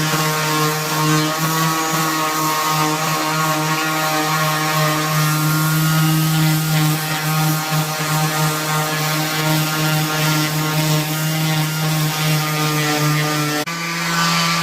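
Electric power tool motor running steadily with a droning hum, its pitch stepping slightly up near the end.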